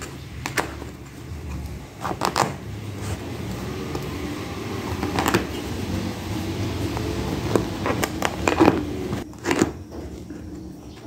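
A small knife blade cutting and picking at the stitching threads of a kapok mattress's fabric cover: irregular short scratchy snags and rustles of cloth, over a low steady rumble.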